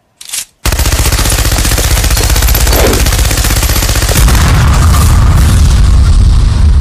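Machine gun firing fully automatic: a short burst, then one long unbroken burst of very rapid shots starting just under a second in, growing heavier in the low end after about four seconds.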